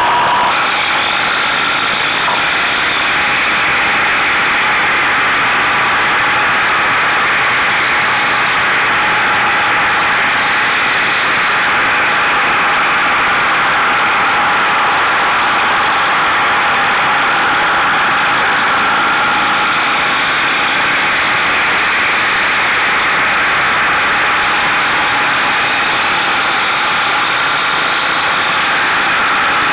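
Buell motorcycle running at speed through curves, its engine heard under a steady rush of wind noise on the mirror-mounted camera.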